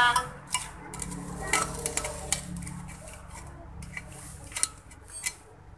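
Irregular sharp metallic clicks and scrapes as a scissors blade is twisted in a mounting hole of a finned aluminium electric-motor housing, reaming the hole wider, with the housing handled between strokes.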